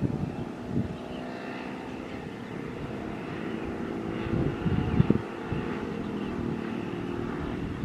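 Boeing 737-500's CFM56-3 turbofan engines running with a steady whine, while wind buffets the microphone in gusts, strongest about halfway through.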